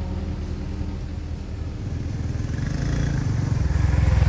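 Sumitomo SH120 A3 excavator's diesel engine running smoothly as the machine travels, growing louder over the second half.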